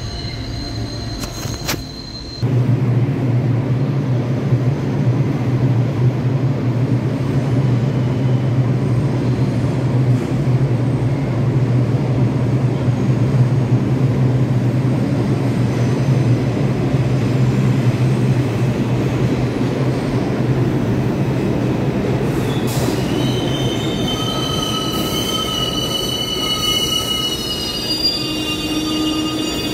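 New York City subway train of R62A cars pulling into a station: a steady low rumble, then near the end several high-pitched squeals from the wheels and brakes as it slows.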